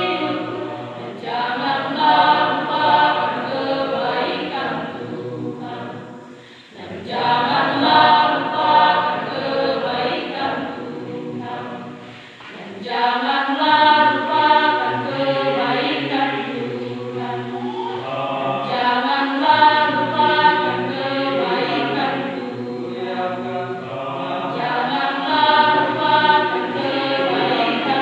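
Church choir singing, the phrases breaking off briefly about six and a half and twelve and a half seconds in before the voices come back in.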